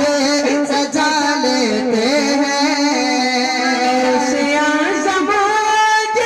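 Male voice singing a naat in long, wavering, ornamented notes through microphones, over steady sustained accompaniment.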